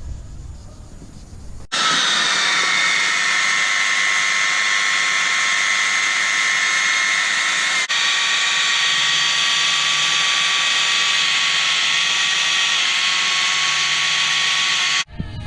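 A power tool running steadily with a high whine over a loud hiss. It starts abruptly a couple of seconds in and cuts off abruptly near the end, with a brief break about midway.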